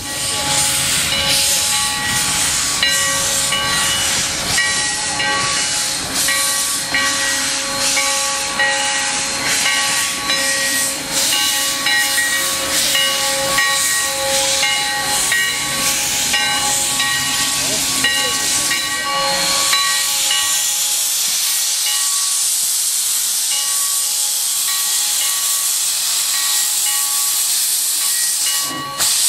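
Sierra Railway No. 3, a 4-6-0 steam locomotive, hissing steadily with escaping steam. For the first twenty seconds or so its bell rings about once a second over the hiss, then stops.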